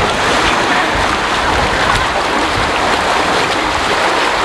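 Water running down a water slide chute and pouring into the splash pool: a steady rushing.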